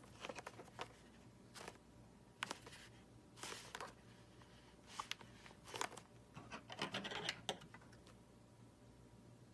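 Slime-filled stress ball being cut open: a faint, irregular string of short scraping, rubbing and clicking sounds that stops about three-quarters of the way through.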